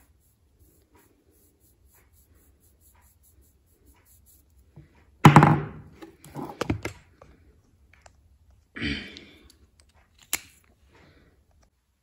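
Handling noises close to the microphone: a loud thud about five seconds in, a couple of softer bumps and rustles after it, and a short sharp click near the end, from hands moving a concealer tube on a tabletop.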